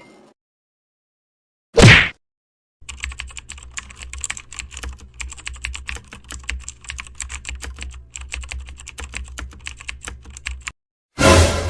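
Rapid computer keyboard typing, a dense run of irregular key clicks lasting about eight seconds over a steady low hum. A short, loud burst comes about two seconds in, and another starts just before the end.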